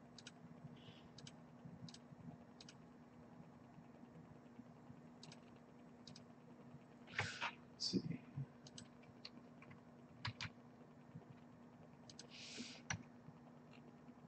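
Faint, sparse keystrokes on a computer keyboard, clicking at an irregular pace over a low steady hum. A couple of short breathy hisses come about seven and twelve seconds in.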